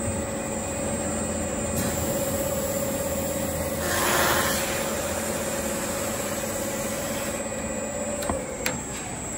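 SDA-500M end sanding and milling machine running with a steady motor hum while an MDF facade panel is fed along its roller conveyor. A rush of sanding noise swells for about a second near the middle as the panel's edge passes the sanding drums. Two sharp clicks come near the end.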